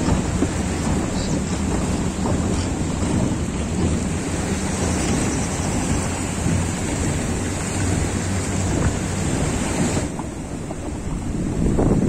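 Wind buffeting the microphone over a steady low boat-engine hum. A steady high hiss cuts off about ten seconds in.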